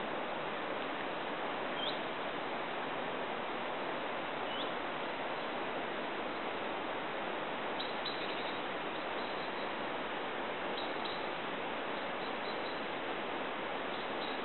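Steady outdoor rushing noise with a few short, high bird chirps over it.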